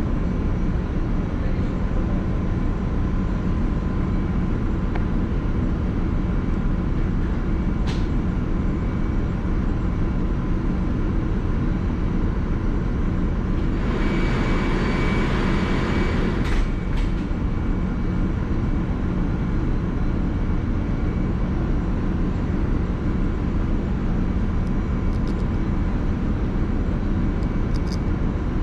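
Steady low drone of a ship's running machinery with a faint steady tone. A louder hiss comes in for about two seconds halfway through, and a few small clicks come from the hands handling the transmitter's parts.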